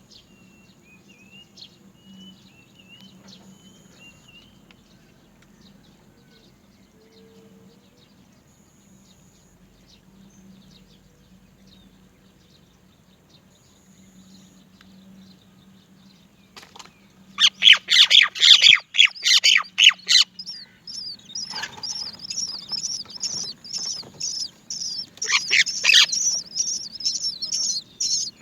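Myna nestlings begging for food: after a quiet stretch, a loud burst of harsh, dense calls about two-thirds in, then a continuous high-pitched chorus of begging calls with louder peaks.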